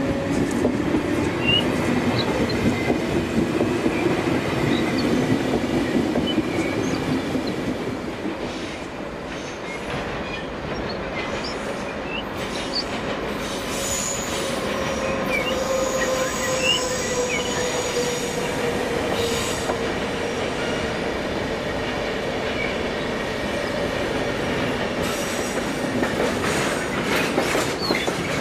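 HO-scale model electric trains running on the layout's track: a steady rattle of small wheels on rail under a faint motor whine that slowly shifts in pitch, with scattered clicks.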